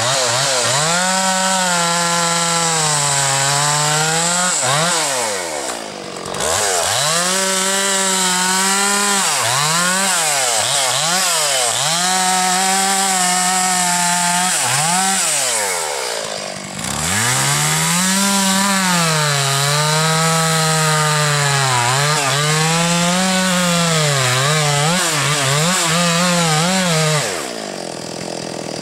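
Chainsaw cutting into the base of a standing tree at full throttle, its engine note sagging and recovering again and again as the chain bites into the wood. The revs drop off twice between spells of cutting and fall to idle near the end.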